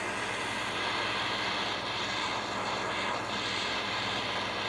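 Handheld gas torch burning with a steady hiss as its blue flame heats a stripped screw head to loosen the threads.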